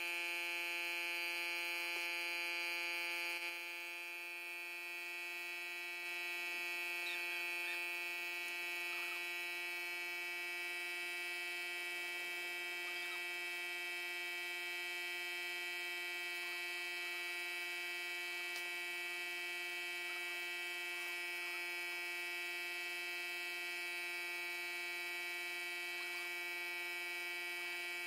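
Air compressor running, a steady electric hum with many even overtones, dipping briefly a few seconds in.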